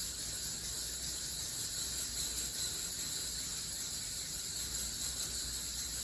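Metal slinky's coils sliding and jostling across a tiled floor as waves pass along it, a steady high-pitched hiss.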